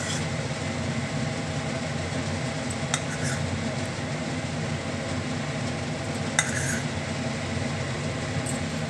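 A few light clinks of a metal spoon against a small bowl and the pan, over a steady mechanical hum.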